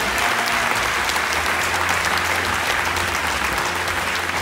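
Audience applauding steadily, dense clapping from a large crowd in a hall.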